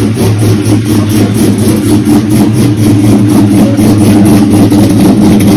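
Engine of a cammed pickup truck idling steadily, loud and close.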